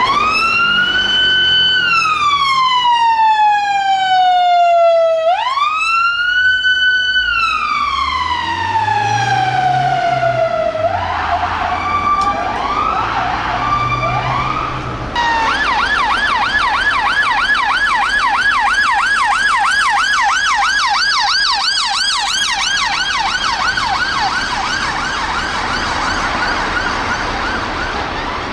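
Emergency vehicle sirens. First a slow wail rises, holds and falls about every five seconds, then come a few short faster sweeps over a low rising-and-falling hum. From about fifteen seconds in, a rapid yelp takes over, at two to three sweeps a second.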